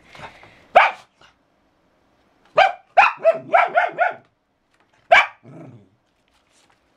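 Small dog barking in short barks: one about a second in, then a quick run of about six between two and a half and four seconds in, and a last one just after five seconds with a low rumble trailing it.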